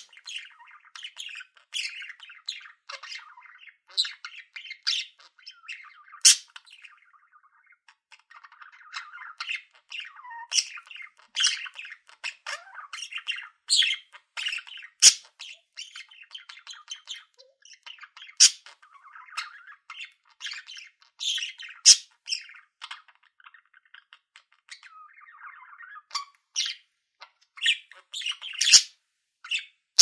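Several budgerigars chattering: quick, overlapping chirps, squawks and warbles.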